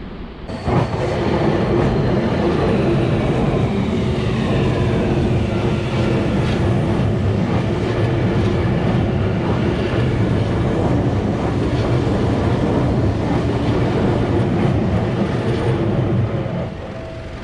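A train passing: a loud, continuous rumble of wheels and cars that starts suddenly about half a second in and cuts off near the end, with a high tone sliding downward during the first few seconds.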